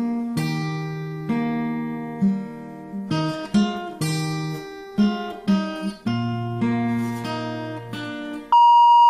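Acoustic guitar music, plucked notes and chords each ringing out and fading. Near the end a loud, steady electronic beep cuts in for under a second and then stops abruptly.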